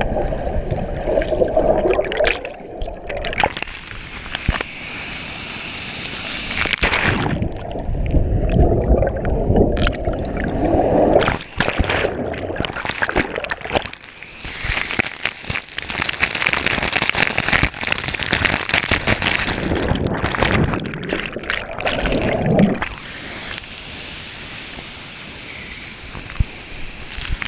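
Waterfall and pool water heard alternately underwater and above the surface: muffled gurgling and sloshing while submerged, switching several times to the steady hiss of falling water.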